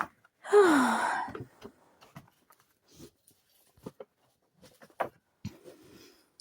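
A woman's breathy sigh, its pitch falling, about half a second in, followed by faint scattered clicks.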